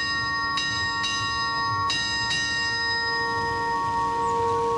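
Old hanging ferry bell rung by its clapper: four strikes falling in pairs about half a second apart, the last a little over two seconds in, then the ringing dies away with a lower hum lingering.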